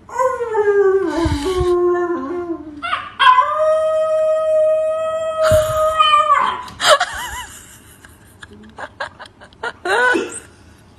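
A man and a small curly-coated puppy howling in turn, the puppy copying him. The howls are long: one falls in pitch, one is held steady for about three seconds, and shorter wavering howls follow, with a brief rising one near the end.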